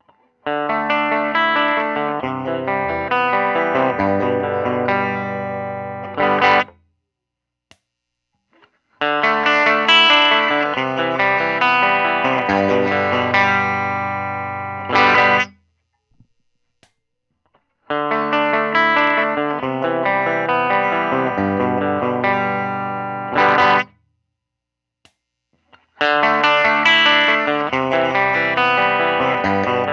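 Electric guitar played through a Benson amp with a clean tone, the same roughly six-second chord phrase played four times with short silent gaps between. Each phrase ends with a short, sharper strum.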